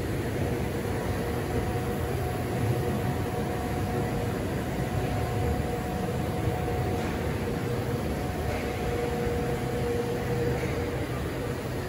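Steady workshop background hum over a constant hiss, with a faint held whine and no distinct events.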